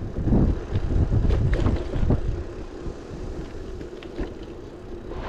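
Wind buffeting the microphone of a handlebar-mounted camera on a moving bicycle, over the rumble of tyres on a rough concrete road, with a few knocks as the bike jolts over cracks. The gusts are heaviest in the first couple of seconds and then ease.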